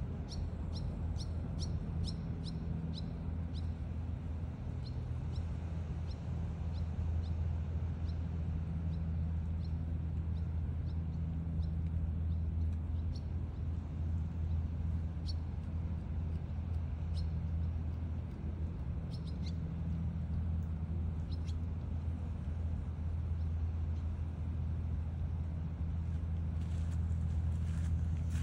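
A steady low mechanical hum, like an idling engine, runs throughout. Short high chirps come several times a second over the first few seconds, then only now and then.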